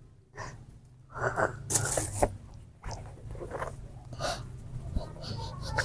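Baby monkeys making brief squeaky calls and a sharp hissing burst about two seconds in, among scattered soft clicks and rustles as they tussle over a milk bottle.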